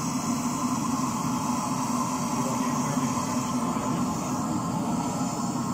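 Burner of a bell-metal melting furnace running with a steady rushing rumble as the metal is brought up for the pour.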